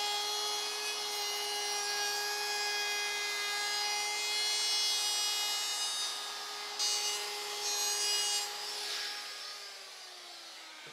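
Compact trim router running at speed with a steady high whine, its bit cutting a round-over along the edge of the passive-radiator hole in a plywood panel. About nine and a half seconds in it is switched off and winds down, its pitch falling.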